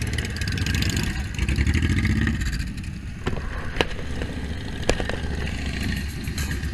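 A line of motorcycles, Harley-Davidson cruisers among them, running as they ride close past one after another; louder about two seconds in as one passes nearest. Two short sharp clicks about a second apart near the middle.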